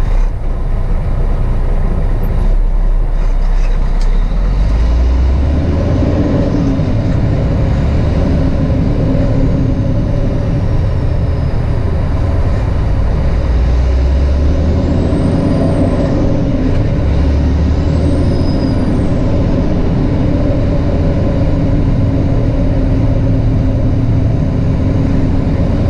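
Semi-truck's diesel engine running under way, heard from inside the cab. Its note rises and falls a few times as the truck pulls away and gathers speed.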